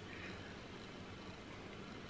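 Quiet room tone: a faint, steady hiss with no distinct event.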